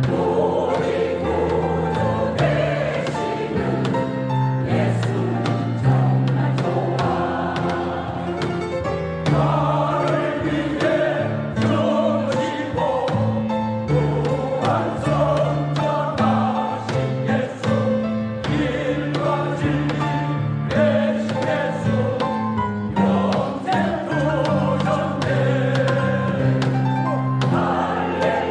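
A church choir singing a sacred song in parts over held low notes.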